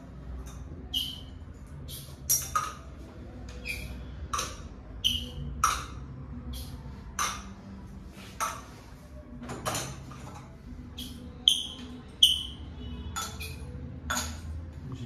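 Plastic vacuum cupping cups being taken off a bare back one by one: a string of about twenty short, sharp pops and clicks as the suction seals are broken and the cups knock together in the hand.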